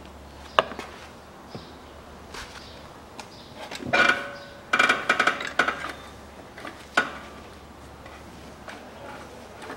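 Scattered knocks and clinks of hands handling parts and tools on the rider's engine, with a clatter of several ringing clinks about four to six seconds in and a single sharp knock about seven seconds in.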